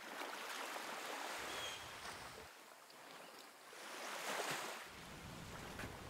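Ocean surf washing in, a steady rush of water that swells up twice and ebbs away.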